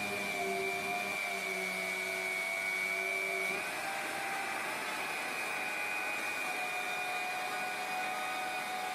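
CNC router spindle cutting grooves in paper-faced gypsum board: a steady high whine over a rushing noise. A lower hum drops out about a third of the way through while the whine carries on.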